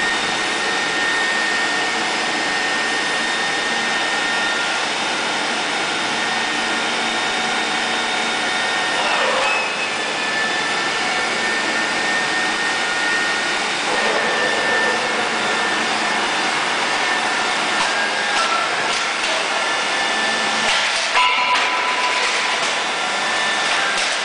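Steady whine and hiss of running machinery: several high tones held over a rushing noise, with brief shifts in pitch about 9, 14 and 21 seconds in.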